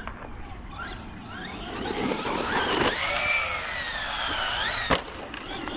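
Brushless electric motor of a 1/10 scale four-wheel-drive RC stadium truck (Arrma Vorteks 4x4 223S BLX), whining in short rising bursts, then a long whine while the truck is airborne off a jump, sagging slightly and then sweeping up sharply. It ends in a single sharp knock as the truck lands.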